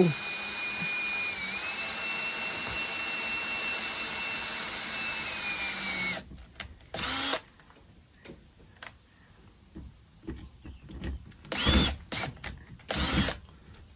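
Power drill running steadily as it bores a small starter hole for a screw, its whine stepping up slightly in pitch about a second and a half in, then stopping about six seconds in. A few short knocks and handling noises follow.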